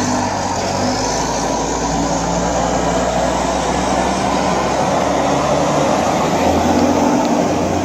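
Fire truck engine running steadily as the ladder company turns out, a low engine hum under a steady rush of noise.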